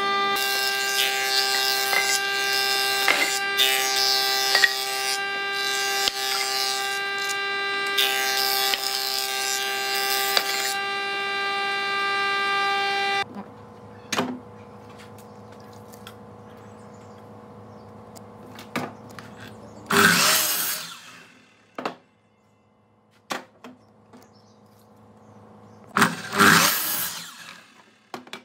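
An electric power tool working wood runs with a steady whine for about thirteen seconds, then stops abruptly. Later come two short, loud rasping bursts about six seconds apart.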